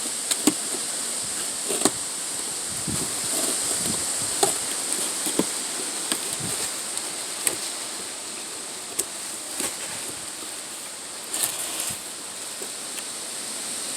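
Scattered clicks, taps and rustles of boxes and plastic parts being handled and opened, over a steady high-pitched hiss.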